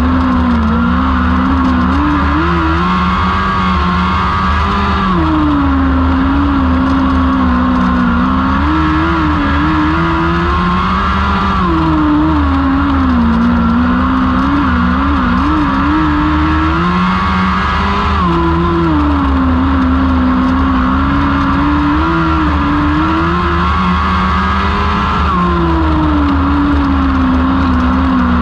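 Lightning sprint car 1000cc engines racing laps on a small dirt oval. The engine pitch rises on the straights and drops into the turns, repeating about every six to seven seconds, over a steady low rumble.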